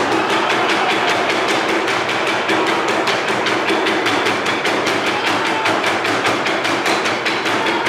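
Burundian drum ensemble playing tall wooden ingoma drums, beaten with wooden sticks in a fast, steady rhythm of sharp strokes.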